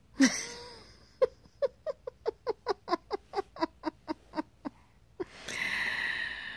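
A burst of laughter: a quick run of about fifteen short 'ha' pulses, roughly four a second, then a long breathy exhale like a sigh after laughing.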